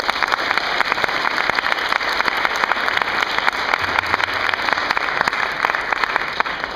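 Large audience of schoolchildren applauding, a dense steady clatter of clapping hands that dies away near the end.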